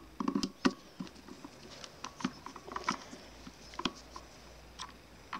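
Screwdriver working screws out of a black plastic project-box lid: scattered small clicks, taps and scrapes of metal on plastic, with a few louder knocks in the first second.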